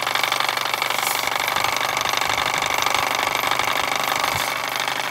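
Mamod SP4 toy steam engine running steadily while driving a Wilesco model cement mixer, its drum turning with wet concrete mix inside: a fast, even mechanical chatter.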